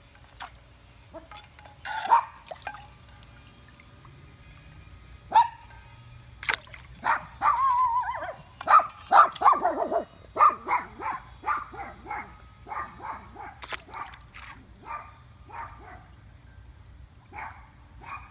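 A dog barking and whining: a few sharp barks, a wavering whine about halfway through, then a run of short quick barks at about two a second.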